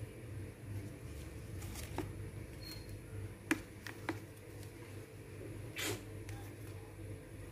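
Banana-leaf packets being handled in an aluminium steamer pot: a few light clicks and rustles over a steady low hum.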